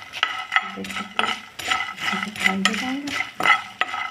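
Metal ladle stirring and scraping puffed rice and peanuts as they roast in a pan, knocking against the pan about twice a second with short ringing clinks.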